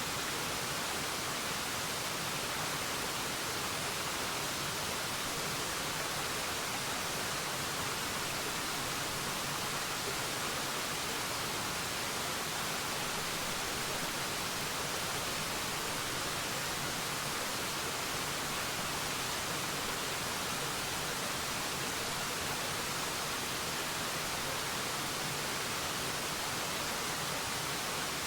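Waterfall: a steady, even rush of falling water, with no change or break.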